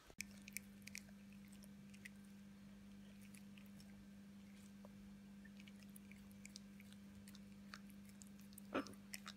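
Near silence with a low steady hum and faint small clicks and nibbling sounds from a blue-and-gold macaw working its beak at a dog's muzzle; one slightly louder short sound near the end.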